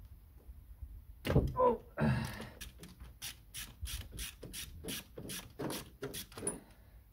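Hand ratchet clicking about three times a second as a spark plug is unscrewed from the MGB's cylinder head, to check that the piston is at top dead centre. A louder rubbing scrape comes about a second in, before the clicking.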